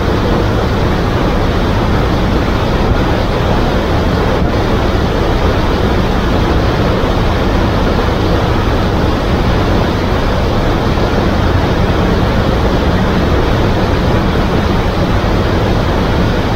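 Rushing water from a waterfall and its river: a loud, steady noise without breaks.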